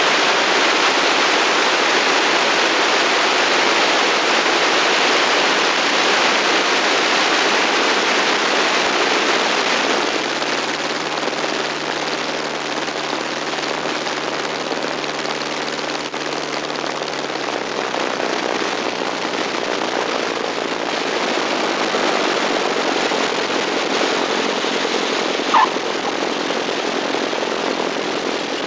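Strong, steady wind rush on a wing-strut camera of a VP-1 Volksplane on approach, with the aircraft's Volkswagen-derived engine running underneath. About ten seconds in the rush eases and a steady engine hum comes through for several seconds. A single short squeak about three seconds before the end.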